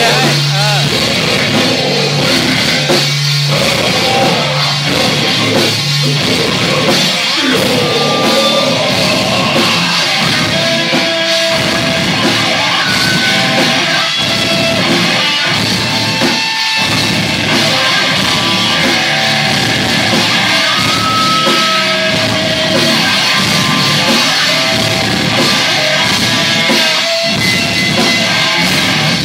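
Rock band playing live at full volume: drums and electric guitars in a dense, unbroken wall of sound.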